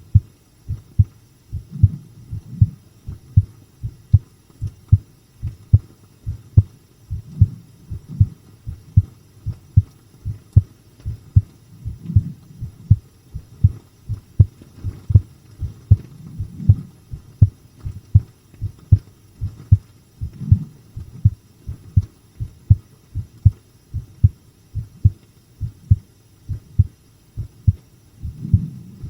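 A person's heartbeat heard close up, beating steadily in paired lub-dub thumps a little over once a second. The beats are strong rather than fast.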